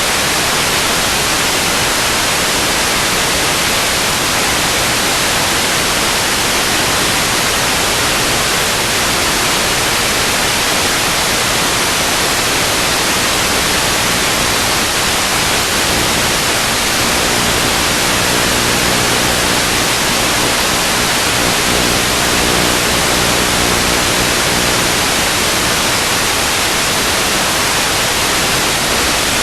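Loud, steady white-noise static hiss of the kind recorded through an analog FPV video receiver. A faint low hum with overtones sits under it for about ten seconds in the middle.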